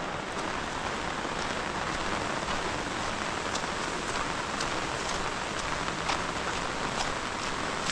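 Heavy rain falling steadily, with scattered sharp drips landing close by.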